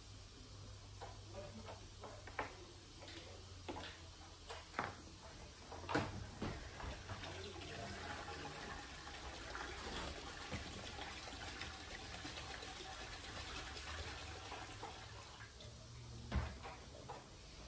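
Fuel pouring in a steady splashing stream from a Poulan backpack blower's tank into a plastic bucket, drained because the flooded blower will not start. A few knocks from handling the blower come in the first few seconds and once near the end.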